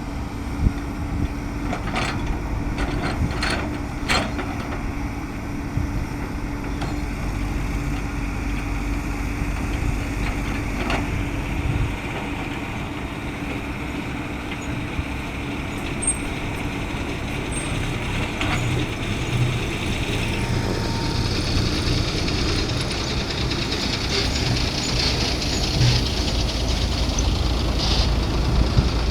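Heavy diesel machinery running at a worksite, an excavator and tipper trucks: a steady low engine drone throughout, with a few sharp knocks in the first few seconds and a hiss joining about two-thirds of the way through.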